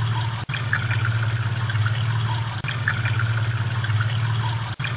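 Pump running with a steady low hum, with water splashing and hissing over it.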